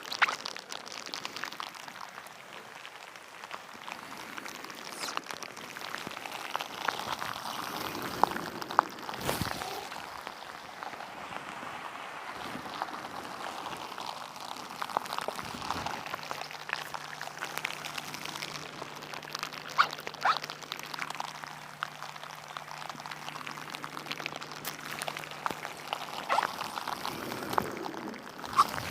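Rain falling, with many separate drops striking close to the microphone as sharp clicks over a steady hiss. A few soft low thumps come through, and a faint steady low hum sits under the rain for about ten seconds midway.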